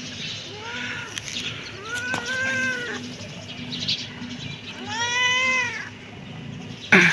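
Kitten meowing three times, each meow rising and then falling in pitch, followed by a short, louder cry near the end.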